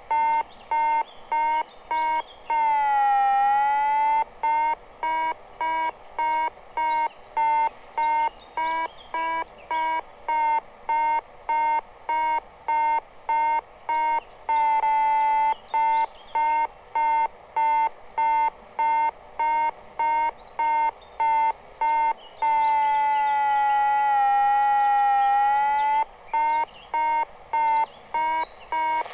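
Electronic altimeter audio tone, a pitched beep near 1 kHz repeating about twice a second. In a few stretches it turns into a steady unbroken tone whose pitch dips and then rises again.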